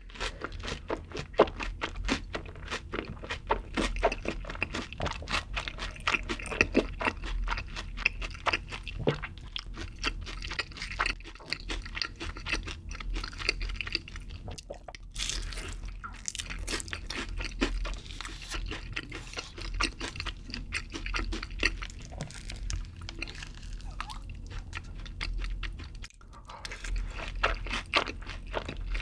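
Close-miked chewing of sauce-coated fried chicken: a dense run of crunching and wet mouth clicks, with a sharper, brighter crunch about halfway through.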